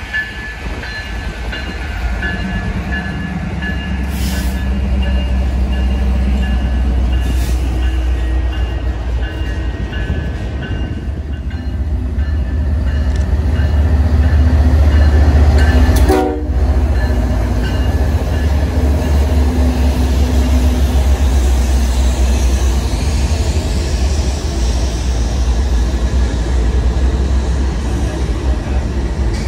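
BNSF freight trains passing close: GE diesel locomotives and rail cars make a heavy, continuous rumble that is loudest about halfway through as the lead units go by. A multi-note locomotive horn sounds together with it for the first several seconds, then fades.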